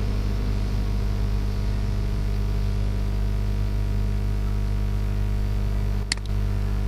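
Steady electrical hum with a hiss from the recording microphone, and a single sharp click about six seconds in, as a mouse button is clicked.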